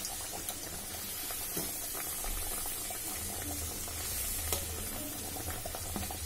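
Urad dal kachoris deep-frying in hot oil in a kadhai: a steady sizzle and bubbling, with a few light clicks of a slotted metal spoon against the pan.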